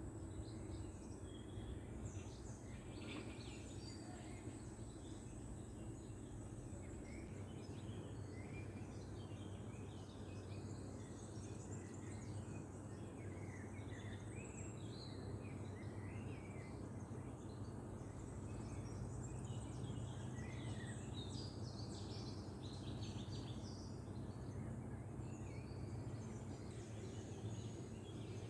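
Small birds chirping and twittering in many short scattered calls, over a steady low background rumble.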